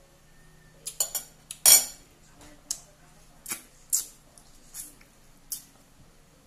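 A metal spoon clinking and scraping against ceramic dinner plates: a quick cluster of clinks about a second in, the loudest just before two seconds, then lighter single clinks every second or so.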